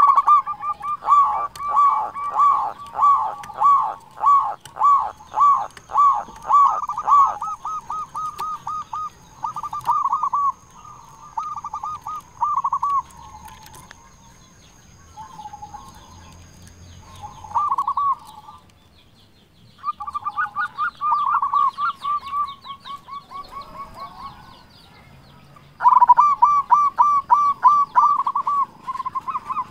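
Local zebra dove (perkutut) cooing in bursts of quick repeated notes, with short pauses between the bursts. The first burst opens with evenly spaced notes, about two a second, that quicken into a fast run.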